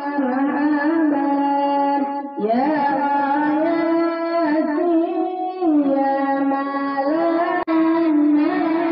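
Islamic devotional singing (sholawat), a melodic line of long held notes with gliding, ornamented turns. The sound drops out for a moment near the end.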